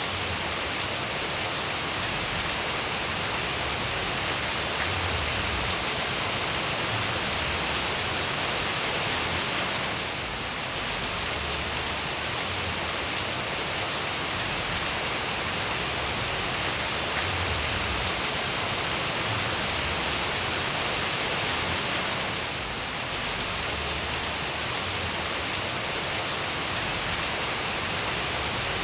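Steady rainfall, an even hiss of drops. The level dips slightly and briefly twice, about 10 and 22 seconds in.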